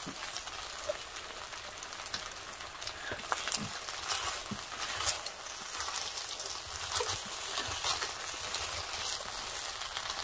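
Beef and rice sizzling and crackling in a hot pot still on the heat of a tabletop stove: a steady hiss with many small pops. Wooden spoons scrape and click against the pot now and then.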